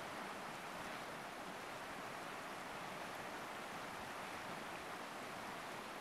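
Wide river running fast over rapids: a steady, even rush of water.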